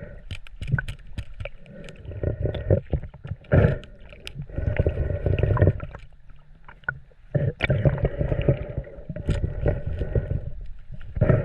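Water sloshing and splashing close by in shallow sea water, in uneven swells with scattered small clicks and knocks.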